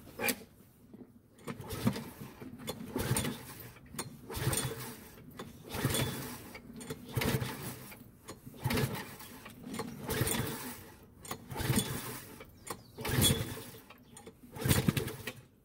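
Push lawn mower's recoil starter pulled over and over, about ten pulls roughly a second and a half apart. Each pull is a short burst of the engine turning over, and the engine does not catch despite a couple of priming squirts.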